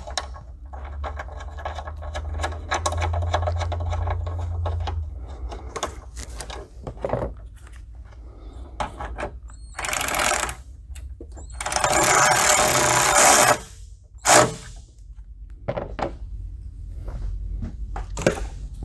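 Tools tightening the bracket's fasteners: a stretch of rapid mechanical clicking, then several short bursts of a small power tool. The longest and loudest burst comes about twelve seconds in and lasts about a second and a half.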